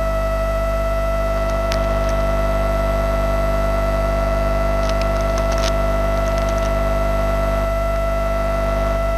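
Steady electronic hum with a faint pitched tone and low buzz, unchanging throughout, with a few faint clicks about two and five seconds in: dead air on a broadcast feed whose picture has gone black.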